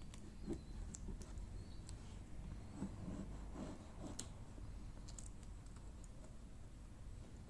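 Faint, irregular light taps and clicks of fingertips and fingernails pressing a thin vinyl decal onto a car's plastic rear reflector and handling the film, over a low steady background hum.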